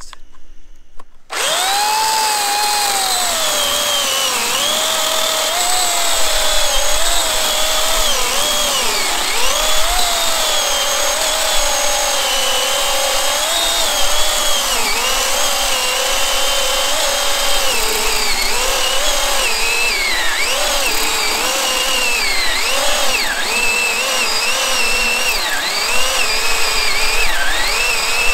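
Menards Remington 14-inch corded electric chainsaw with an 8-amp motor, starting suddenly about a second in and cutting through a thick log. Its motor whine dips and recovers in pitch over and over as the chain loads up in the wood.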